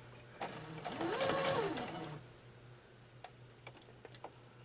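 Brother electric sewing machine stitching a short burst of about a second and a half, its motor speeding up and then slowing to a stop. A few light clicks follow near the end.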